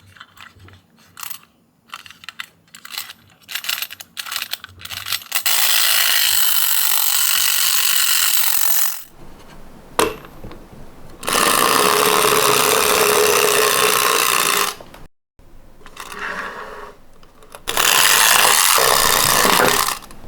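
Clicks and taps from handling a toy ambulance minicar, then three rattling runs of its wheels down a slope, each lasting about three to four seconds.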